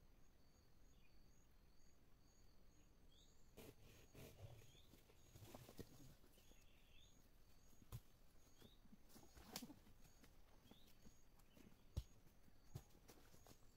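Faint footsteps rustling through dry fallen leaves and a few sharp knocks, the loudest about twelve seconds in. Behind them a faint high chirp repeats evenly, a little under twice a second.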